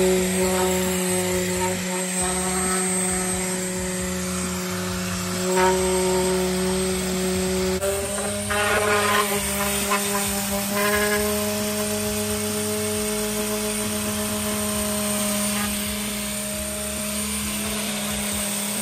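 Random orbital sander running steadily against a car's painted body panel, with a constant hum; its pitch steps up slightly about eight seconds in.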